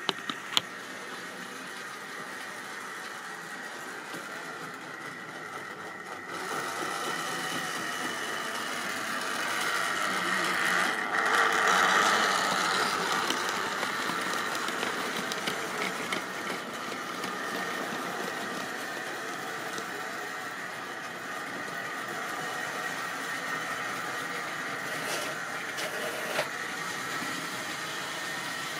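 Model railway train of goods wagons running past on the track: a steady electric-motor whine with wheel rattle that grows louder as it approaches, is loudest about twelve seconds in, then eases off. A couple of sharp clicks right at the start.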